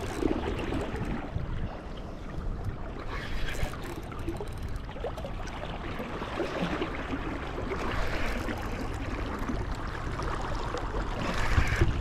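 Steady rush of flowing river water, with wind buffeting the microphone in uneven low gusts.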